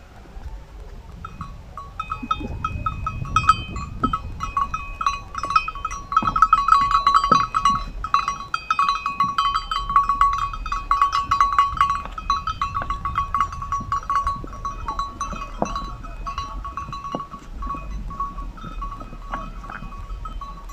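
Herd of goats moving over rocks, with a small metal bell on the herd clinking rapidly and continuously. The clinking grows loudest a few seconds in, then fades toward the end.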